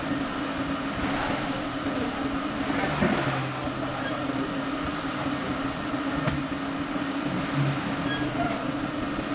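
Steady machine hum of tyre-shop equipment, with a few faint clicks and knocks about three and six seconds in.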